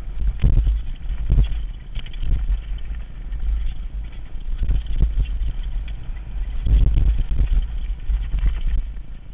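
Mountain bike descending a rough dirt trail at speed: heavy wind rumble on the microphone, with irregular knocks and rattles of the bike over bumps.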